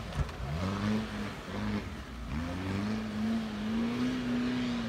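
Suzuki Vitara's swapped-in 1.9 TDi diesel engine revving under load as the 4x4 climbs a muddy hill. The revs rise and fall a few times, then hold steady and high from about halfway in.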